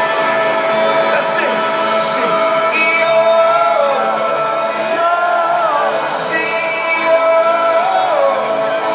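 Live rock band playing a stadium concert, with held keyboard tones under the crowd singing, shouting and whooping along.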